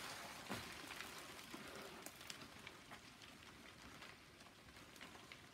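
A mass of adult brown crickets scrabbling and crawling inside their mail-order box: a dense, rain-like patter of tiny scratches and clicks, getting slightly fainter toward the end.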